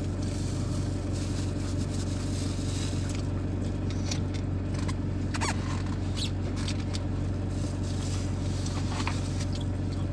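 Steady low hum of a van idling, heard inside the cabin, with a few short faint squeaks and crinkles from clear plastic food-handling gloves as he eats.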